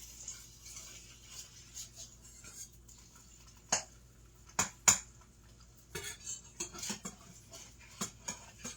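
Kitchen utensils and dishes clinking and knocking in a string of sharp, uneven taps while breakfast is cooked; the loudest knocks come about four to five seconds in.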